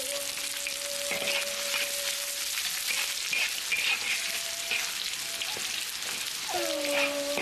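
Food sizzling as it is stir-fried in a wok, a steady hiss broken by repeated scrapes of the spatula. A few quiet held tones sound under it at the start and again near the end.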